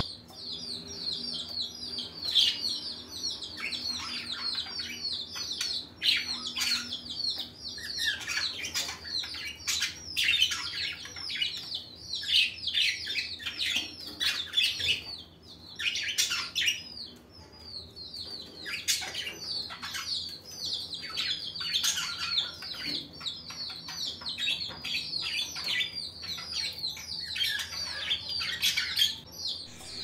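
Budgerigar chirping and chattering: a continuous run of short high chirps mixed with sharper calls.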